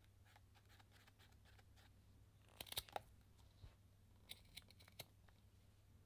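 Quiet hand-crafting sounds: faint brush strokes on paper, then a quick cluster of sharp, crisp paper snaps about halfway through and a few more single snaps a little before the end, from small paper being handled.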